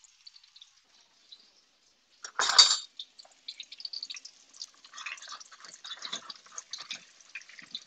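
Tomato fritters frying in hot oil in a skillet. There is a brief clatter about two and a half seconds in, then scattered crackling and popping of the oil.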